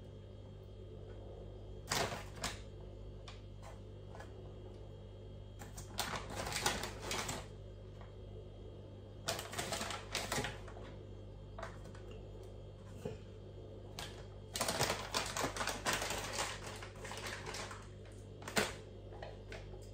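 Plastic bag of grated cheese crinkling and rustling in irregular bursts as it is handled, with a few sharp clicks; a low steady hum underneath.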